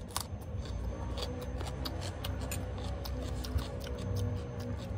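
Close-up chewing of crunchy food, raw vegetables and pig ear, heard as a long run of small crisp crunching clicks, with faint background music.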